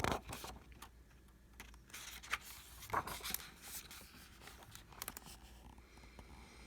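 Faint paper rustling and a few short scrapes as the pages of a picture book are handled and turned.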